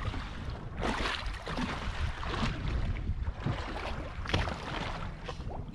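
Wind rumbling on the microphone and choppy water lapping against the side of a drifting boat, with three sharp knocks about one, two and a half and four seconds in.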